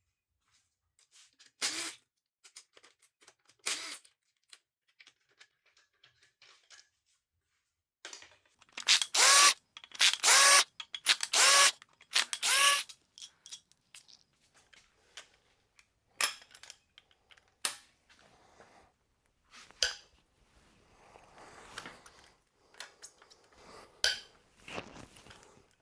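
A handheld power tool run in short bursts: four loud runs close together in the middle, each a second or less, with a couple of shorter ones before. Light metallic clicks and taps of parts being handled come in between and afterwards.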